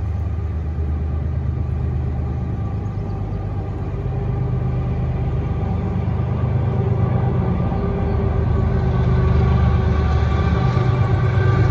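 Diesel locomotives of an approaching CSX freight train, their engines running with a low, steady drone that grows louder as they near.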